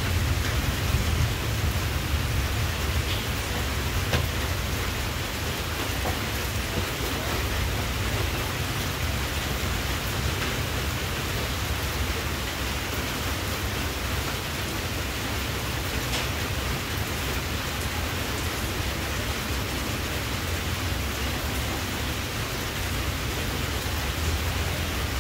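A steady rushing noise with a heavy low rumble underneath, much like rain, with a few faint ticks.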